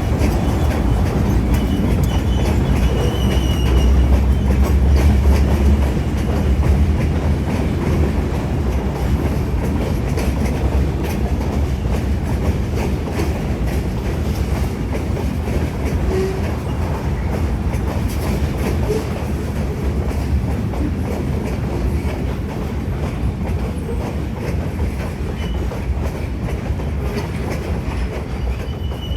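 Canadian Pacific freight train rolling past, its cars' wheels clacking over the rail joints over a steady low rumble. It is loudest a few seconds in and eases off slightly after that.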